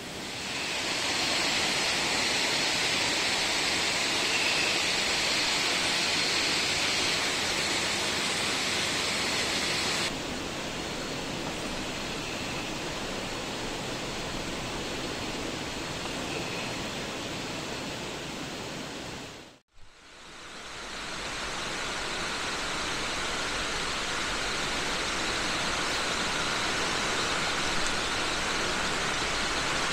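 Steady, even hiss of outdoor night ambience heard from inside a tent. It drops suddenly about ten seconds in, fades out briefly and comes back just before twenty seconds.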